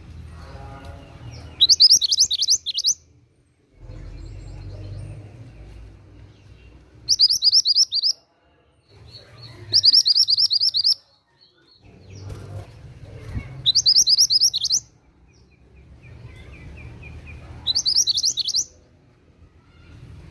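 A mantenan gunung bird singing: five separate, loud bursts of rapid, high twittering notes, each about a second long, with pauses of a few seconds between them.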